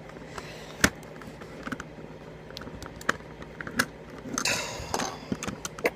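Plastic Rubik's Cube pieces clicking and snapping as they are pressed and pushed into place by hand: several sharp separate clicks, the loudest about a second in, with a short scraping rustle a little past the middle.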